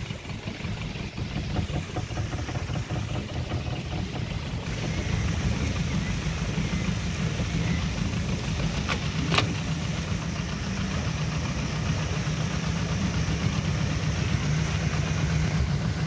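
Motorboat engine running steadily at low speed, a low hum. A single sharp click about nine seconds in.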